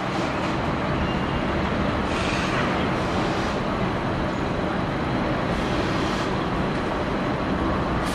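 Steady rumble of road traffic noise, even in level throughout.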